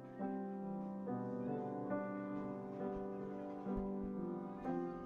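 Background piano music, with a new note or chord struck about once a second.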